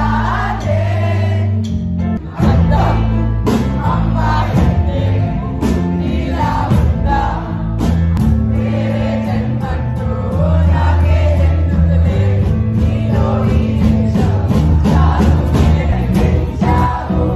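A live band playing a song with bass and drums, while audience members sing along loudly close to the phone.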